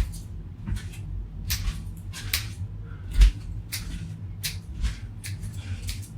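Short, irregular scrapes and cracks of a tool working at a plastic Apple wall adapter that won't break open, with a louder knock about three seconds in.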